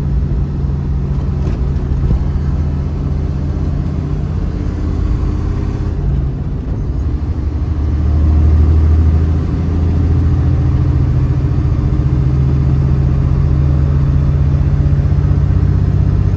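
Small truck's engine running under load, pulling a trailer loaded with a roughly 25,000-pound backhoe. The engine note drops briefly about six seconds in, then comes back louder a couple of seconds later and holds steady.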